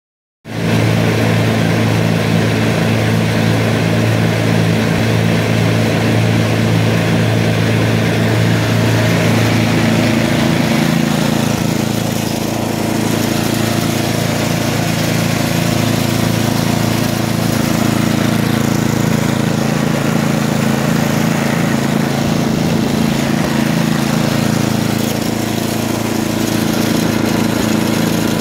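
Craftsman 10/29 snowblower's Tecumseh Snow King single-cylinder engine running steadily, its tone shifting slightly a few times.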